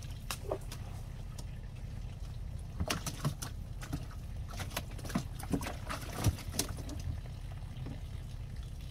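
Water splashing and sloshing in short irregular bursts as caught largemouth bass thrash while a hand reaches in among them to grab one, over a steady low rumble.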